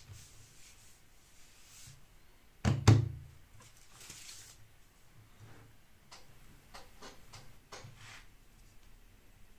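A loud double thud about three seconds in, something knocked or set down on the leatherworking table, followed by light taps and rustles of leather pieces being handled.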